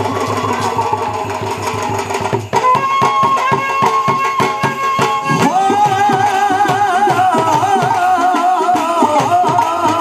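Bhangra music: a fast, steady drum beat under a melody line, with a brief break about two and a half seconds in.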